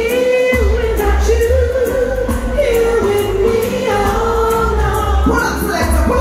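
Live lovers rock reggae played loud over a PA: singing over a pulsing bass line and a steady hi-hat beat.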